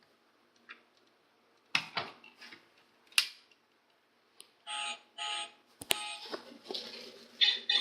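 Electronic sound effects from a toy Lamborghini model car: a few plastic clicks, then two short beeps about halfway through, followed by a click and a noisy electronic effect that starts near the end.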